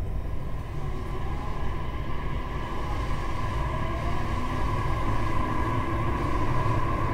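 JR East E531-series electric train running, pulling away after a station stop: a steady low rumble of wheels on rail under a motor whine that grows gently louder as it gathers speed.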